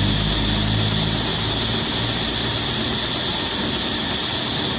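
A low, steady motor drone that fades out about two seconds in, over a constant hiss.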